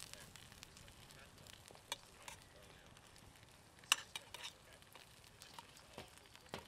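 Slices of spam sizzling in oil in a small steel pan, with metal tongs clicking and scraping against the pan as the slices are turned. Several sharp clicks; the loudest comes about four seconds in.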